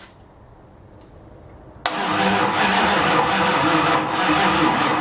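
Starter cranking a Chrysler 360 V8, starting abruptly about two seconds in: the engine turns over in a steady rhythm but does not catch. It is getting no spark, because the key switch is not making contact.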